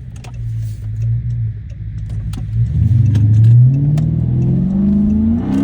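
The 6.4-litre Hemi V8 of a Chrysler 300 SRT8 runs low and steady, then revs up under hard acceleration from about two and a half seconds in. Its pitch rises smoothly until a quick dip near the end, like a gear change, while the tyres spin on the launch. Light rattles click throughout.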